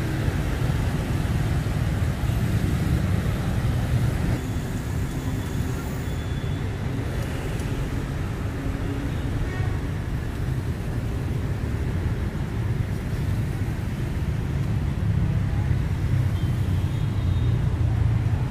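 Steady city street traffic noise, mostly motorbikes running past on a busy road.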